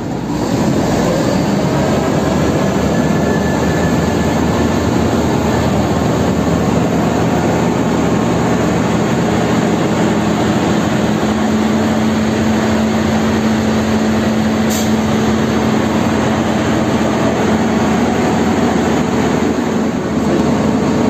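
Rotary water-well drilling rig running: a loud, steady heavy machinery drone from its engine and rotary drive. A steady hum comes in about halfway through, and a single brief click is heard a few seconds later.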